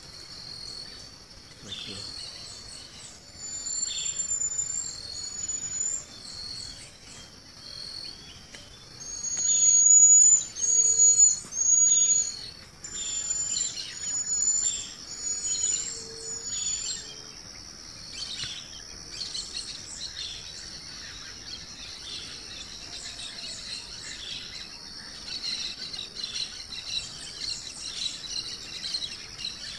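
Birds singing, repeated short high whistled notes in quick groups, loudest in the first half. Under them runs a steady high-pitched drone of insects such as crickets, which becomes the main sound in the second half.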